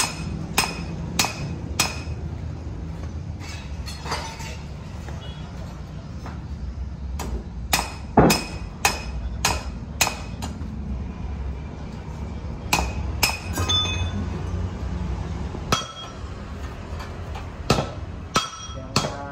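Hand hammer striking metal on a steel block: irregular blows, each with a short ringing metallic clink, over a steady low hum.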